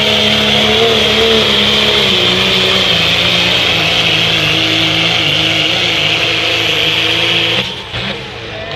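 Diesel pickup truck engine at full throttle under heavy load, pulling a weight-transfer sled, with a strong high hiss over it. Its pitch sags slowly as the load builds. Near the end it lets off and the sound drops away suddenly.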